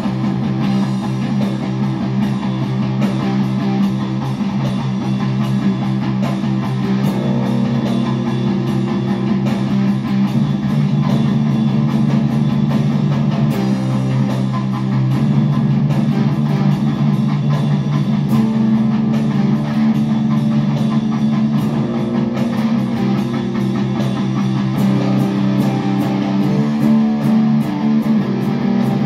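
Two electric guitars playing a rock improvisation together, continuous and loud.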